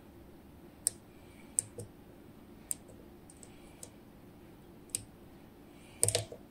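Sharp, irregular clicks from a lock pick and tension tool working the pins inside a DOM IX Twido high-security lock cylinder, with a louder cluster of clicks about six seconds in.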